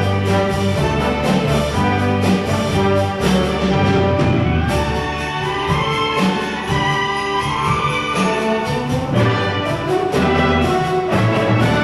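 Church orchestra playing, with the brass section to the fore: sustained chords punctuated by regular accented notes.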